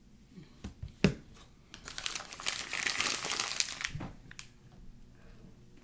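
Crinkly packaging rustled and crumpled by hand for about two seconds, following a sharp knock about a second in, with a thump near the end.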